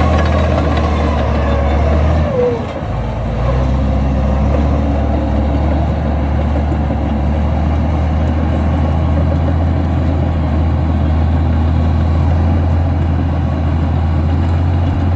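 Komatsu D65E bulldozer's diesel engine running with a steady low drone, dipping briefly about two and a half seconds in before settling back. A thin whine falls in pitch over the first couple of seconds.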